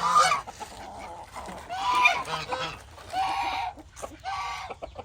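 A pen of poultry calling, with about four loud, harsh honking calls a second or so apart over a busy flock background.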